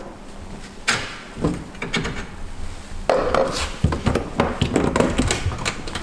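Metal clicks, clanks and knocks as a caravan's front storage hatch and folding A-frame drawbar hardware are unlatched and handled: a few separate knocks at first, then a dense run of clatter from about three seconds in.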